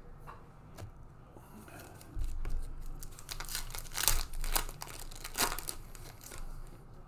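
Foil wrapper of a Panini Mosaic trading-card pack being torn open and crinkled by hand. It begins about two seconds in, with the sharpest rips near the middle.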